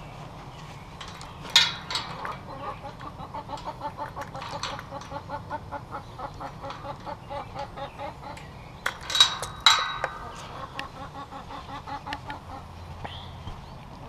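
Backyard hens clucking in a steady run of short calls, about three a second, through the middle of the stretch. Sharp clanks from the wire pen gate being handled come about a second and a half in and again around nine to ten seconds in; these are the loudest sounds.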